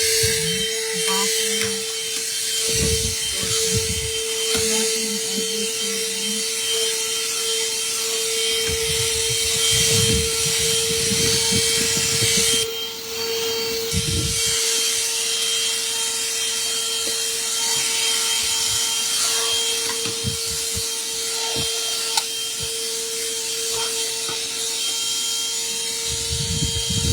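12-volt car vacuum cleaner running, a steady motor whine over a rush of air, with the nozzle bumping and rubbing against surfaces as it is worked around. The sound dips briefly about halfway through.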